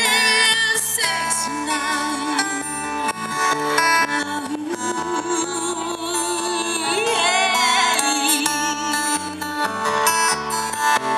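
A woman singing live into a microphone over acoustic guitar accompaniment, amplified through a PA, holding some long notes with vibrato.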